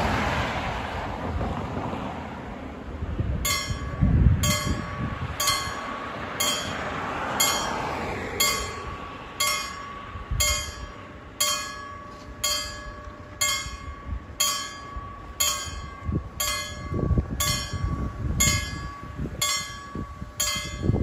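Level-crossing warning bell starting about three and a half seconds in and striking steadily about once a second, each strike ringing briefly: the warning that the barriers are lowering for an approaching train. Road traffic noise runs underneath.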